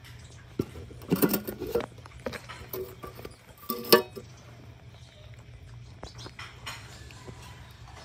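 Scattered knocks and rattles of a small cart being handled, with short squeaky sounds from baby monkeys in two clusters, the louder one about four seconds in.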